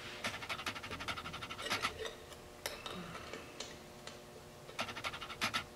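Hand ratchet clicking in three quick runs of fast, even clicks while driving in the two Loctited screws that hold a plate inside the transmission case.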